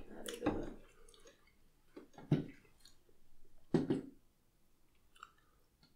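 People biting into and chewing submarine sandwiches, close to the microphone. There are a few short bursts of mouth and bread sounds, the loudest about two seconds in and another about four seconds in, with quiet chewing between.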